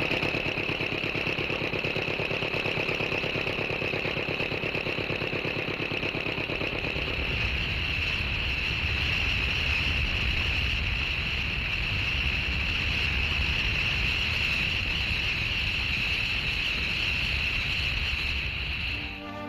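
Engines of drainage pumps running. A fast, even engine beat for about the first seven seconds gives way to a deeper, steady rumble, with a constant high whine throughout.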